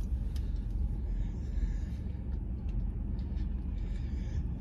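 Steady low rumble inside a parked car's cabin, with a few faint clicks.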